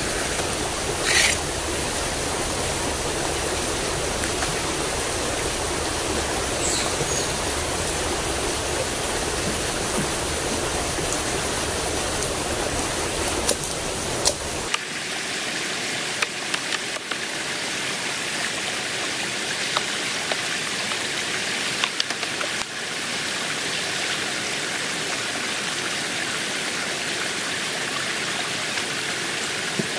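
Steady rushing of flowing water in a drainage ditch, with a few faint knocks and snaps. The deep rumble underneath drops out about halfway through.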